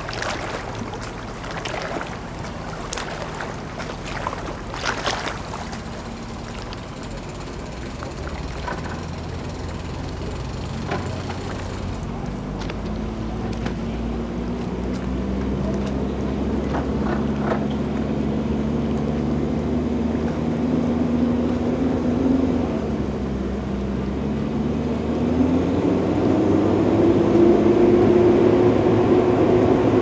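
Twin outboard motors running at low speed. They grow gradually louder and rise in pitch about 25 seconds in. A few sharp knocks sound in the first five seconds.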